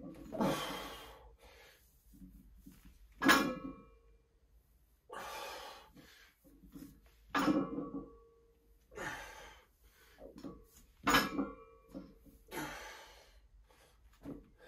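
Heavy breathing during deadlift reps with a 140 kg barbell, the loaded bar and weight plates knocking down on the floor mat three times, about four seconds apart, each with a short metallic ring.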